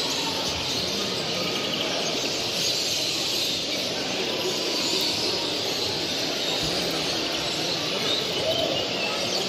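A dense, steady chorus of many caged finches, European greenfinches among them, chirping and twittering all at once.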